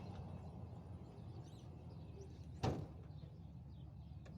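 A single sharp clunk about two and a half seconds in, as the ASV RT-40 track loader's safety bar or cab is shut, over a steady low rumble.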